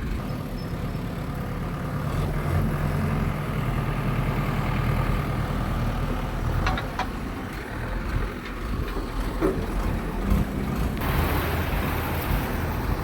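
Excavator's diesel engine running steadily with a low hum, with a few sharp metallic clicks about seven and nine and a half seconds in.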